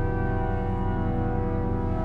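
Church pipe organ holding full, steady chords at a constant loudness.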